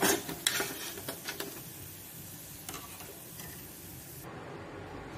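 Steel slotted spoon clinking and scraping on a steel plate as freshly fried vanela gathiya are tipped off it, a few sharp clinks in the first second and a half, over a faint steady sizzle of hot frying oil.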